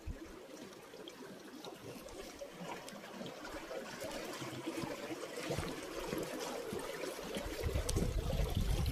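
Shallow mountain stream trickling and splashing over rocks, growing louder through the clip. A low rumble joins near the end.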